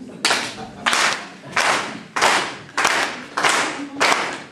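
Audience clapping together in a steady beat, about three claps every two seconds, each clap ringing out briefly in the hall.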